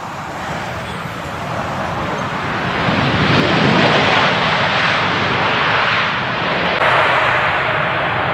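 Jet airliner on landing approach, its engines a loud rushing roar that grows to its loudest about three to four seconds in and then holds steady.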